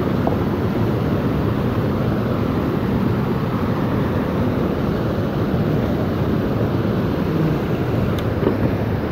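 Mountain stream and small waterfall rushing over rocks: a loud, steady noise of water, heaviest in the low end. A light click about eight seconds in.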